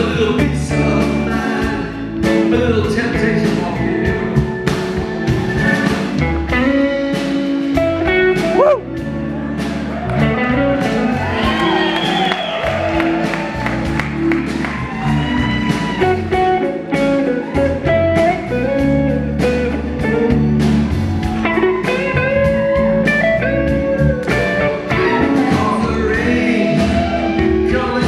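Live rock-and-soul band playing: electric guitars, bass guitar, drum kit and organ, with a man singing lead over them.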